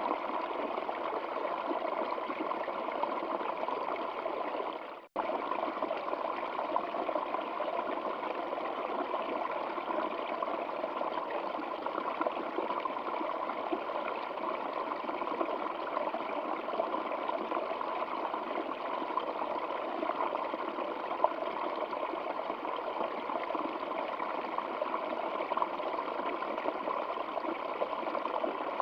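Steady rushing and trickling of flowing stream water, broken by a brief fade to silence and an abrupt restart about five seconds in.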